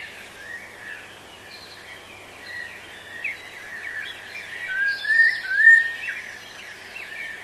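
Birds chirping and singing, many short overlapping calls, loudest about five seconds in with a run of quick rising notes.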